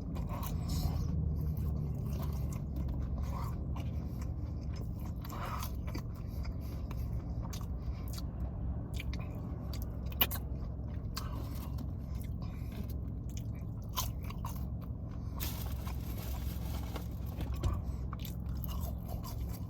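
Close-up mukbang eating sounds: biting and chewing McDonald's chicken nuggets, with wet mouth smacks and small crunches.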